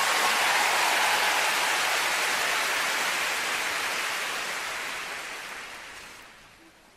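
Large arena audience applauding: dense, steady clapping that fades away over the last couple of seconds.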